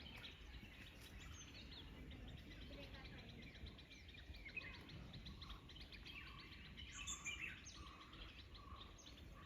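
Faint birdsong: several small birds chirping and twittering in quick repeated notes, with a few clearer whistled calls near the end, over a low background rumble.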